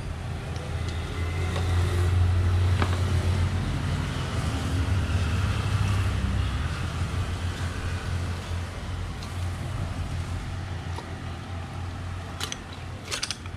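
A low engine drone swells a couple of seconds in and slowly fades, with a few sharp metallic clicks near the end as the crankshaft of a Yamaha 15 hp outboard is lifted out of its crankcase.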